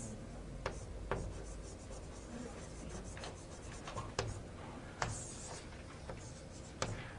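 Writing on a board: several sharp taps and short scratching strokes of the writing tool as a diagram is drawn.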